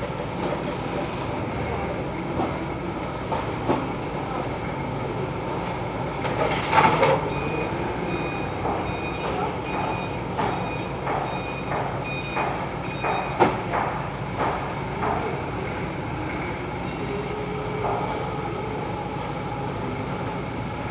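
Forklift running, its reversing alarm beeping at an even pace for about five seconds in the middle. Wooden pallets knock and clatter, with the loudest knock about thirteen seconds in and a short burst of noise near seven seconds.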